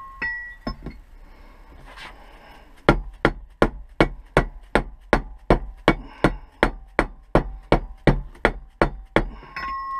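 Mallet striking a socket used as a seal driver, knocking a new oil seal into a Volvo XC90 differential housing: a steady run of about twenty sharp knocks, roughly four a second, after a few light metal clinks.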